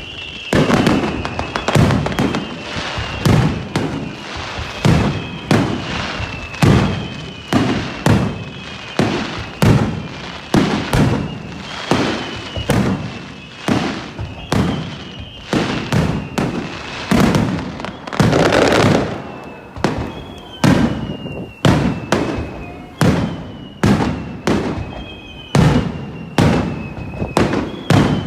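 Aerial fireworks display in a steady barrage: shell bursts going off a little more than once a second, each a sharp bang with a short rumbling tail. A high whistle that drops slightly in pitch keeps recurring through the barrage.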